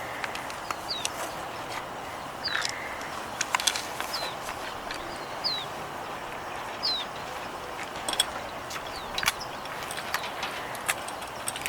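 A bird calling with short, sharp chirps, each a quick falling note, repeated every second or two. Scattered sharp clicks and ticks sound among the chirps.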